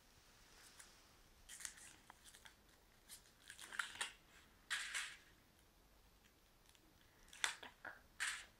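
Foil wrapper of a Kinder Surprise chocolate egg crinkling and tearing in short bursts as it is peeled off by hand.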